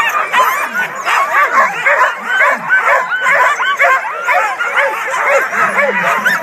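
Many sled dogs barking, yipping and whining all at once in a dense, overlapping chorus of short high calls. It is the keyed-up clamour of a dog yard as teams are readied to run.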